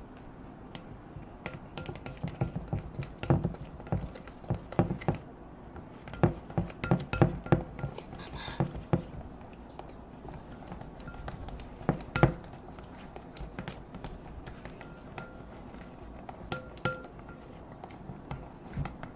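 Fork stirring slime of glue, solution and shaving cream in a bowl: irregular knocks and clicks of the fork against the bowl, thickest in the first half and sparser later.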